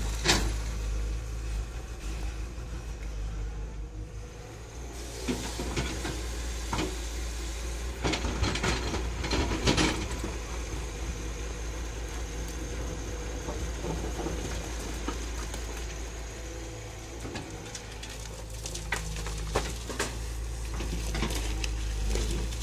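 Tata Hitachi EX200LC tracked excavator's diesel engine running steadily as it works a rock pile, with knocks and scrapes of the bucket digging into broken rock and loose rock and soil sliding. The knocks come in bunches: just after the start, several seconds in, and near the end, with the busiest stretch around the middle third.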